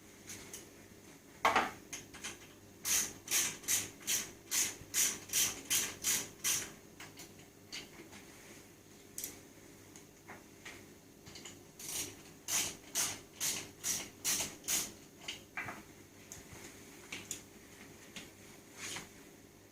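A hand ratchet being worked in quick back-and-forth strokes, about two or three a second, in two runs, tightening the mini bike's fuel tank fixings. A single sharp knock comes just before the first run, with scattered metal clicks around the strokes.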